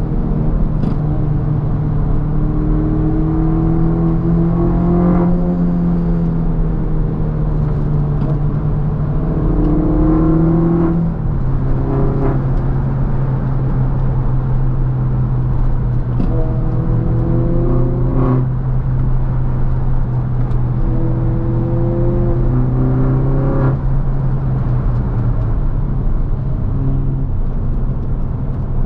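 R56 Mini Cooper S's turbocharged four-cylinder engine heard from inside the cabin while driving, over a steady low drone that drops in pitch about eleven seconds in. The engine note climbs four times and breaks off sharply each time.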